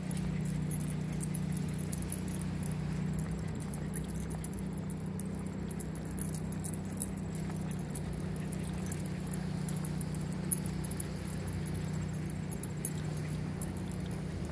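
Small dogs' claws ticking on wooden boardwalk boards, with harness tags and leash clips jingling, in many fine irregular clicks. Under them runs a steady low hum that stops near the end.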